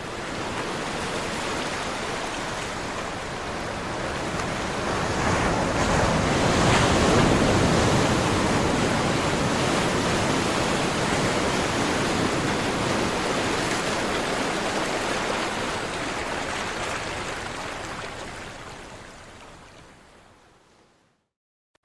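Ocean surf: waves washing in a steady rush that swells to its loudest about a third of the way in, then slowly fades away near the end.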